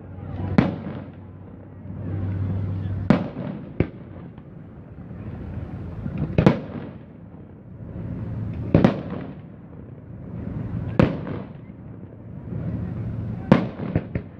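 Aerial firework shells bursting overhead, a sharp bang every two to three seconds, about eight in all.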